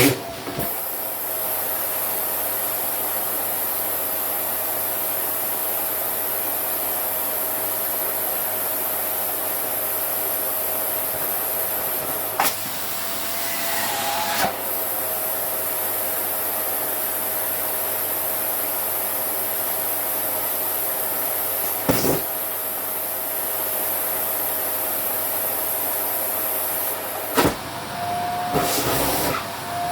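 Vacuum cleaner running steadily with a constant motor hum and hiss as a down jacket is fed into it. There are a few sharp knocks, and twice, about thirteen seconds in and near the end, the motor's pitch rises briefly while the hiss changes.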